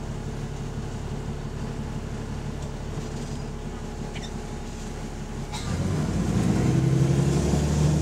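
Double-decker bus diesel engine heard from the upper deck with an exhaust leak: it runs steadily with a low rhythmic pulsing, then grows louder and rises in pitch about five and a half seconds in as the bus accelerates.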